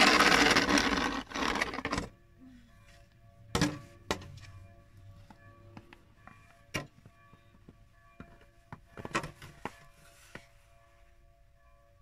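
Snow shovel blade scraping across snow-covered pavement in one long push for about two seconds, then a few scattered knocks and a short burst of scraping about nine seconds in. Faint background music with held notes plays underneath.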